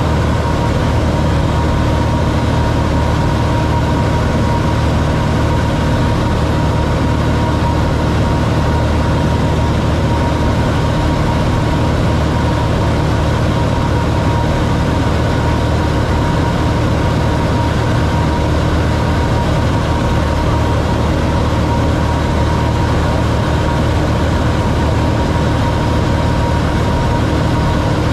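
Cessna 182's piston engine and propeller running steadily in flight, heard inside the cockpit: a low, even drone with a thin steady tone above it.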